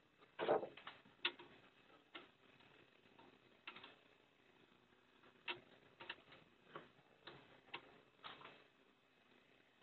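Irregular light knocks and taps as a cut piece of plywood is handled and shifted into position, with a louder knock about half a second in.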